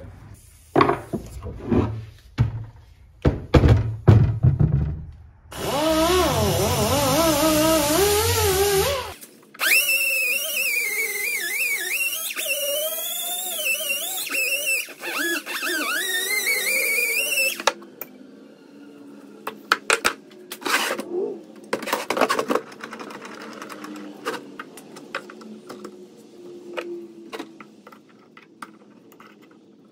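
A handheld electric power tool working metal runs twice: for about three seconds starting five seconds in, then for about eight seconds, its pitch wavering as the load changes. Before and after, metal parts and tools knock and clank as they are handled.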